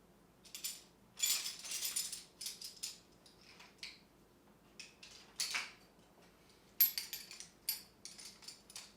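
Metal hand tools clinking and rattling as they are picked up and set down, in irregular clusters, with a longer jangle about a second in and a sharp clink near the end.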